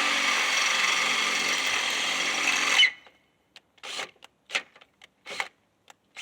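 Electric drill boring into a 3/16-inch steel plate, running steadily for about three seconds and then stopping. A few short scraping sounds follow.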